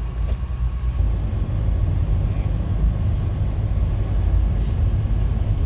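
Steady low rumble of a moving vehicle, with an even noise over it.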